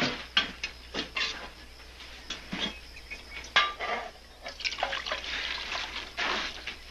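Coffee poured from a metal pot into a tin cup: a few clinks of metal on metal, then a steady pour lasting about two seconds in the second half.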